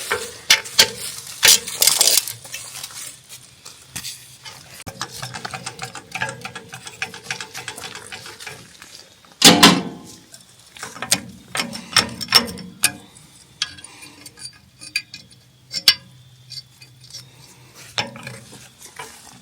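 Metal tools clinking and clicking against the sawmill's bolts and fittings as a nut is loosened and adjusted, with one louder clank about nine and a half seconds in.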